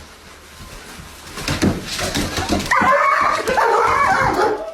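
A dog whining in long, wavering, pitched cries that begin about three seconds in, after a few soft knocks.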